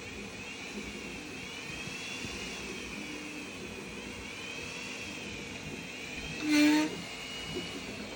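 3D printer stepper motors whining steadily, the pitch rising and falling as the print head changes speed. About six and a half seconds in, a short, louder tone sounds once.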